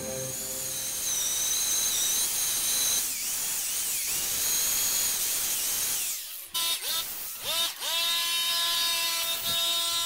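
Small cordless grinder with a wire wheel brushing a forged steel ball-peen hammer head: a high whine over harsh scratching for about six seconds. Then the wheel leaves the work, the motor dips and spins back up, and it runs free with a steady, clean whine.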